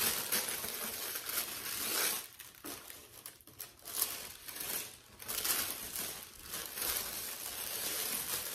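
Tissue paper rustling and crinkling on and off as it is unfolded and pulled back from inside a shoe box.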